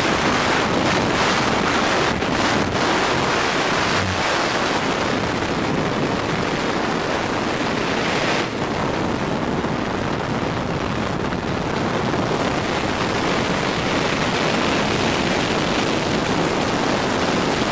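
Freefall wind rushing over a skydiver's helmet-camera microphone: a steady, dense roar of air noise.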